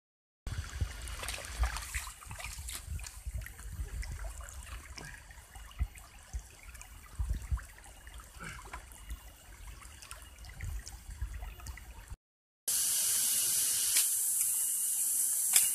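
Water trickling, with low rumbling and scattered soft knocks. About 12 seconds in it cuts off for half a second, then gives way to a louder steady hiss.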